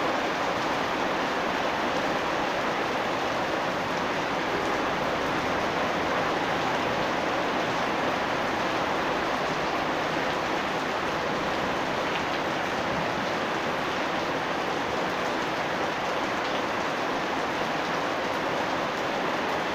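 Steady rain falling, an even, constant hiss of rainfall with faint patter of drops.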